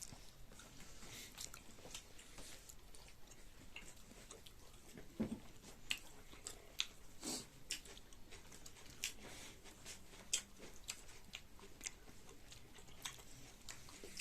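Close-up chewing and biting while eating chicken: irregular short crunches and mouth clicks, the loudest about five, seven and ten seconds in.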